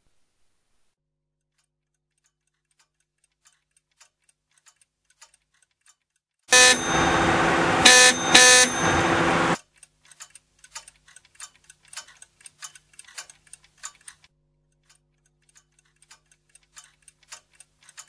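A loud, steady, alarm-like tone rings for about three seconds, with two short louder blips near its end. Quick, uneven ticking follows over a faint low hum.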